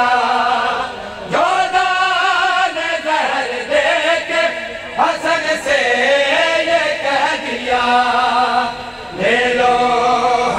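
Male voices chanting a noha, a Shia lament, in long drawn-out sung lines with a wavering pitch. There is a short breath about a second in and another near the end.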